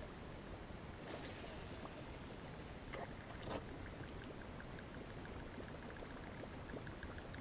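A fishing cast: the reel's spool whirs as line pays out for about a second, and a short splash sounds as the lure lands about three and a half seconds in. Then the reel is cranked for the retrieve with steady ticking, about five ticks a second.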